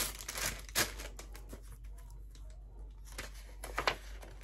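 Paper and packaging being handled: faint rustling and a few light clicks, quieter for a moment about halfway through.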